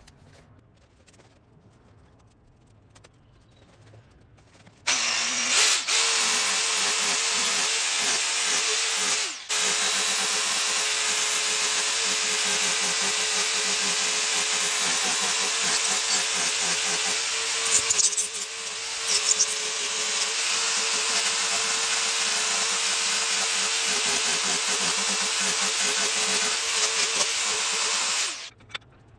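Angle grinder running and grinding into a wooden slab: a steady motor whine under a loud grinding rasp. It starts abruptly about five seconds in, cuts out for an instant about nine seconds in, and stops just before the end.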